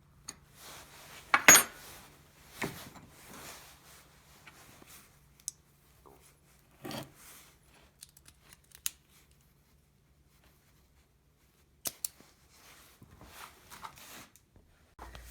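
Metal tools and parts being handled: scattered clinks, taps and scrapes, the loudest a sharp ringing metallic clink about a second and a half in, and another sharp click near the end.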